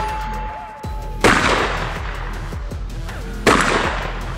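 Two shots from an M4-pattern semi-automatic 12-gauge shotgun, a little over two seconds apart, each trailing off over about a second, with background electronic music under them.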